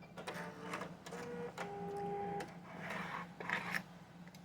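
Sewing machine running in several short bursts, each at a steady motor pitch, with clicks between the runs.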